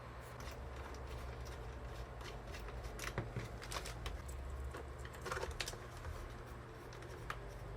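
Scattered small clicks and light taps of a screwdriver and plastic and metal parts being handled while a DJ controller is taken apart, over a steady low hum.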